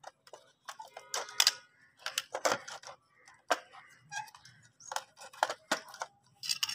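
Plastic clicks and knocks from a toy RC car's plastic cover being pressed and snapped into place and the car's plastic body handled, in irregular sharp taps.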